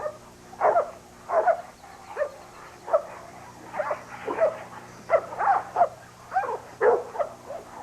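Dog barking repeatedly: about fourteen short barks at uneven intervals, some coming in quick pairs, over a faint steady hum.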